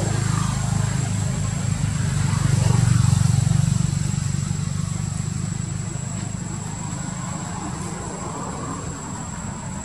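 A low engine hum swells to its loudest about three seconds in, then slowly fades, as a motor passes by. A faint, steady high-pitched tone runs underneath.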